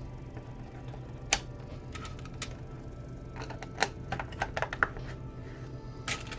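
Plastic Lego pieces clicking as they are picked through and pressed into place: one sharp click about a second in, a few light clicks shortly after, then a quick flurry of clicks in the middle.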